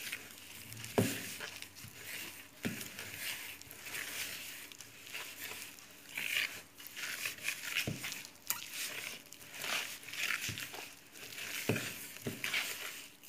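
Hands kneading soft butter and icing sugar in a plastic bowl: irregular squishing and rubbing, with a few knocks of hand against the bowl.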